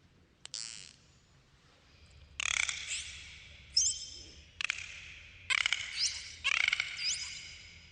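Dolphins calling underwater: a series of harsh, pulsed squawks starting a little over two seconds in, with short rising whistles mixed among them.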